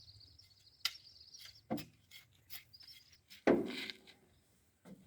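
Insects chirring in short high-pitched bursts, with scattered clicks and one louder knock about three and a half seconds in.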